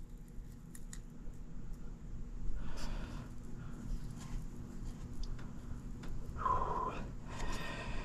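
Quiet handling and cutting of condensate drain pipe and fittings while a new trap is put together: scattered small clicks and short scrapes, the clearest about three seconds in and again near the end, over a steady low hum.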